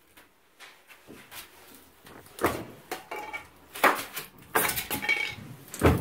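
Plastic drawers and shelves inside a new fridge-freezer being handled: a quiet start, then a series of separate clattering knocks from about two seconds in, some with a short ringing clink.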